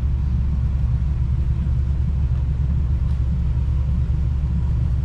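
Jeep engine running at low revs, a steady low rumble.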